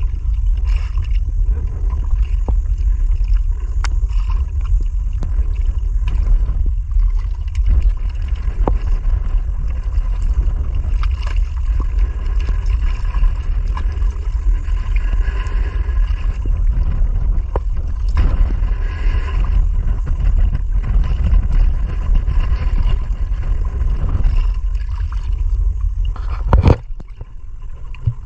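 Wind buffeting the microphone in a steady low rumble, over water lapping and splashing against an outrigger boat's hull on choppy sea. A single sharp knock near the end.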